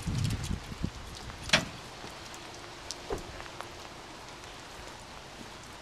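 Footsteps climbing the fold-down metal entry steps into a travel trailer: a sharp knock about a second and a half in, then a lighter knock and a few faint ticks. A faint steady hiss of light rain runs underneath.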